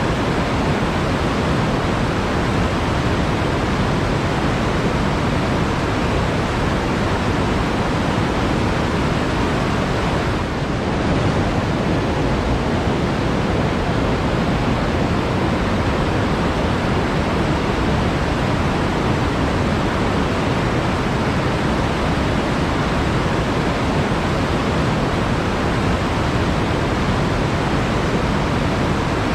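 Water flowing steadily in a forest stream, a constant even rush.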